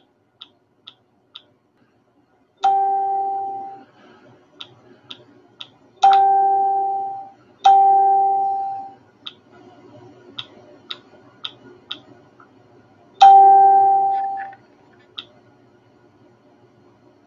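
Electronic notification chime sounding four times, each a single clear tone that rings for about a second and fades, with light quick clicks scattered in between.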